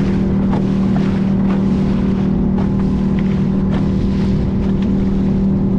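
Motorboat engine running at a steady drone while the boat crosses choppy water, with waves slapping and spray splashing over the bow.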